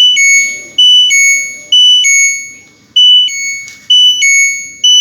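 LG automatic washing machine control board's buzzer sounding a repeating two-note error beep, a short high note stepping down to a longer lower one, about once a second. It is an error alert because the board is powered on the bench with its connections to the machine unplugged.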